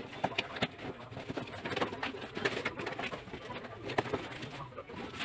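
Cardboard boxes and a foam wrapping sheet being handled, giving scattered rustles and scrapes, while a pigeon coos in the background.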